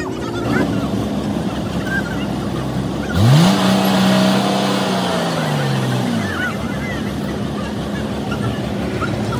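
Heavy vehicle running steadily. About three seconds in, a loud pitched tone rises quickly, holds for nearly two seconds, then slides back down.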